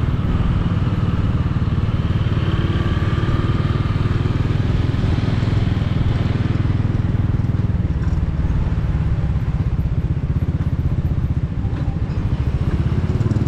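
Motorcycle engine running steadily while being ridden, a continuous low engine rumble.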